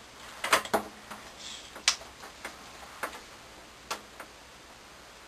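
Light clicks and taps from handling a curling iron while a section of hair is wound on it, scattered over the first four seconds, the sharpest about two seconds in.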